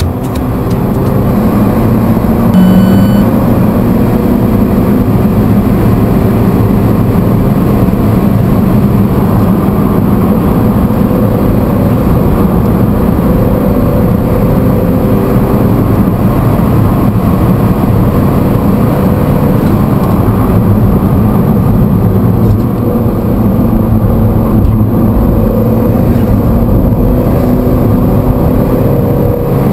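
Alfa Romeo 4C's mid-mounted 1750 cc turbocharged four-cylinder engine driven hard around a race track, heard from inside the cabin, its pitch rising and falling as the car laps.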